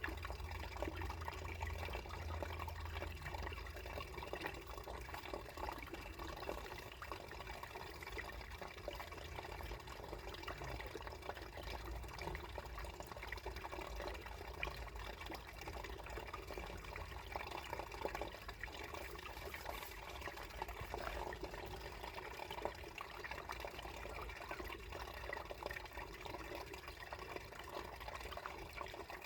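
Water running beneath ice: a steady flow with many small drips and splashes.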